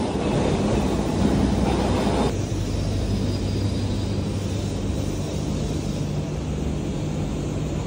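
Steady low mechanical hum and rumble of factory machinery, with a drone of a few low held tones. A broader rushing noise over it stops abruptly about two seconds in.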